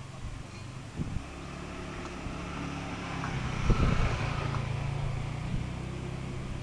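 A motor engine running steadily nearby, growing louder about three and a half seconds in, with a few light knocks.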